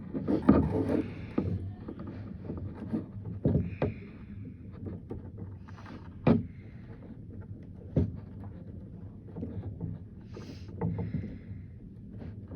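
Rustling and handling noises from untying and unpacking the packaging of a boxed fan, with a few sharp clicks or knocks, the loudest about six seconds in and another about eight seconds in.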